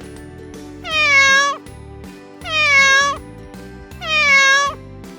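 A cat meowing three times, each meow drawn out with a pitch that drops and then levels off, over background music.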